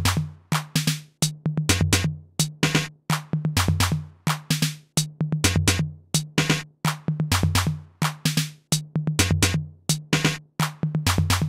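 Electronic music: a fast, steady drum-machine beat over a pulsing bass line.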